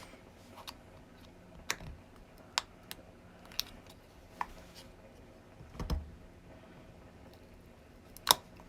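Sharp plastic clicks and taps, irregularly spaced, as the casing of i12 TWS earbuds is pried at through its corner notches; a duller knock about six seconds in and the loudest click near the end.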